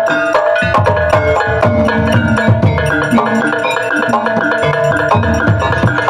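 Javanese gamelan ensemble playing an instrumental passage: metallophones struck in a quick, dense pattern over low drum strokes.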